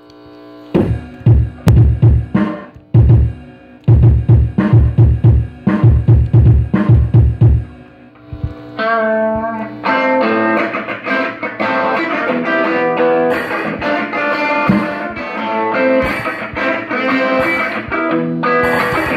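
Live drum kit playing loud runs of hits for several seconds. After a short break a guitar enters about nine seconds in, and the full band picks up a steady blues-rock groove.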